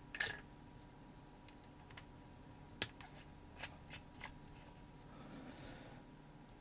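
Batteries being put into a plastic voltage tester pen and its end cap being fitted: scattered light clicks and taps, with a soft rubbing sound for about a second near the end.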